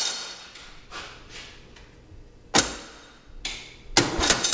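Riding mower's electric starter trying to crank the engine without catching: it whirs and winds down, a sharp clank about halfway through, then it whirs again near the end. The starter is failing against a broken ring gear on the flywheel.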